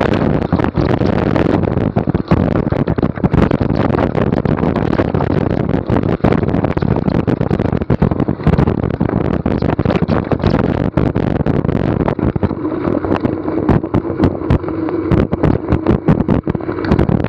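NS Bikes mountain bike riding downhill on a dirt trail: a steady rush of wind and tyre noise with many sharp rattles and knocks from the bike over rough ground. From about twelve seconds in the rush eases and a steadier hum comes in.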